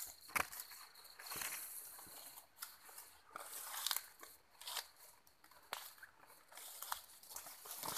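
Footsteps crunching through dry leaf litter and undergrowth, with leaves and stems brushing past: irregular crunches about once a second over a light rustling.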